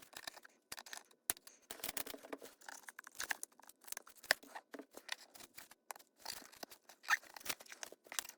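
Irregular small clicks, scrapes and crinkles of hand tools and parts being worked inside an opened iPad Pro as a new battery is eased into place under the glued-down motherboard.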